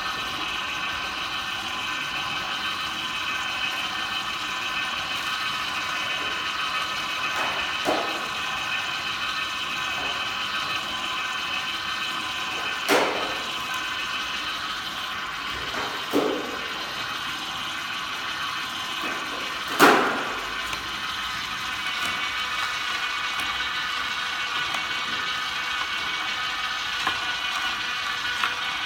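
Vertical slow juicer running steadily, its motor and gearbox whirring as the auger crushes celery fed down the chute. A few sharp cracks break through as the stalks are crushed, the loudest about two-thirds of the way through.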